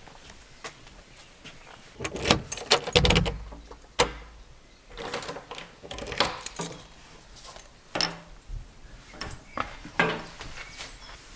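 A bunch of keys jangling and a key clicking in the lock of a wooden front door as it is unlocked and opened, in several separate bursts of rattling and sharp clicks.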